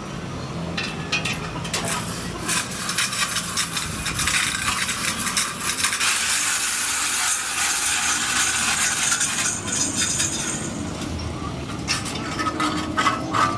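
Irregular scraping with light clinks and knocks of metalwork on a truck rear axle housing.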